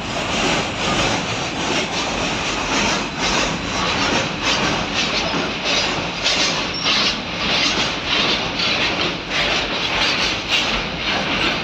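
Long freight train of covered goods wagons running over a steel girder railway bridge: a continuous rumble of wagon wheels on the rails with many irregular knocks and rattles.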